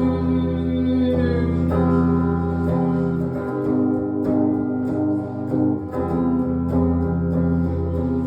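Live solo song's instrumental passage: a guitar plays sustained chords that change every second or two between sung lines.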